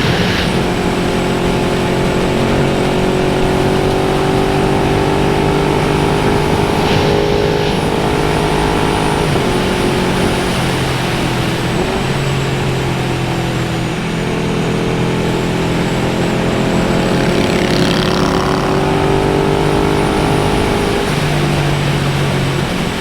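Big motorcycle engine running under way on the road, its pitch slowly rising and easing with the throttle, over a steady rush of wind noise.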